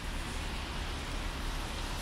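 Steady city street noise in the rain: an even hiss of rain and traffic on wet road, with a low rumble underneath.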